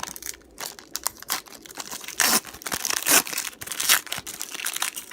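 A trading card pack wrapper being torn open and handled, with crinkling rustles and a few sharp tearing swells, the loudest about two, three and four seconds in.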